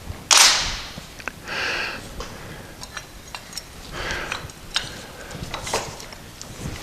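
Light clicks and short rustles of small parts being handled on a workbench.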